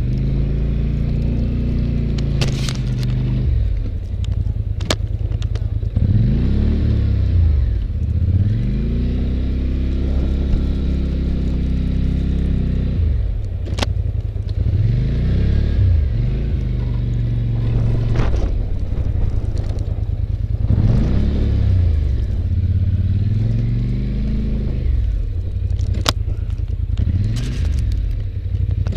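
Polaris Sportsman 850 ATV engine revving up and settling back down again and again as it pushes the plow back and forth. A few sharp knocks cut through the engine at moments.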